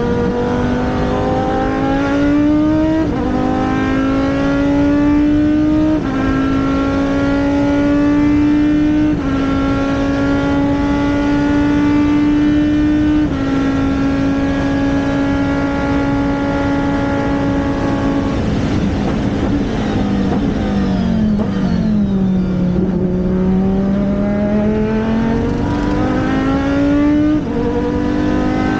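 Race car engine accelerating hard up through the gears, its pitch climbing and dropping sharply at four upshifts a few seconds apart, then holding steady. Later the pitch falls as the car slows, and the engine pulls up through the revs again near the end.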